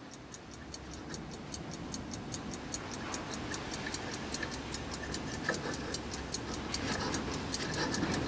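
Antique Fr Sauter SW30 timeswitch's spring-driven clockwork escapement ticking, several even ticks a second: the movement is running.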